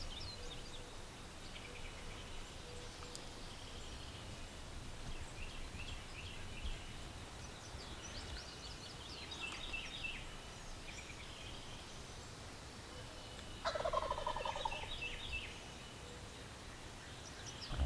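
Wild turkey gobbler gobbling once, a rattling call of under two seconds, about three-quarters of the way through, over faint high chirps of small birds.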